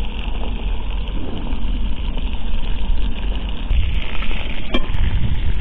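Wind rumbling on the microphone over the sizzle of beef frying in a kazan on a wood-fired stove, with a single click near the end.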